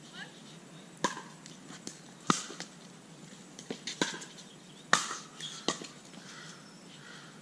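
Pickleball paddles striking a plastic pickleball in a rally: a string of sharp pops at uneven intervals, about five loud ones with fainter knocks between them.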